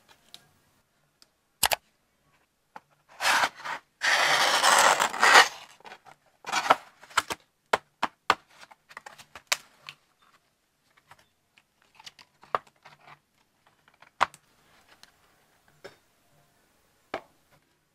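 AirPods box and packaging being handled: scattered sharp clicks and taps, with a louder noisy stretch of tearing from about three to five and a half seconds in.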